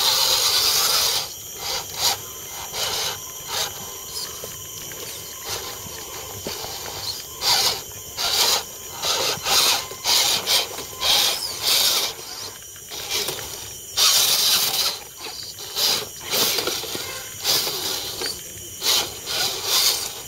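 Land Rover Defender D90 scale RC crawler's electric motor and gears whirring in short, irregular throttle bursts, each a second or less, as it crawls over rocks.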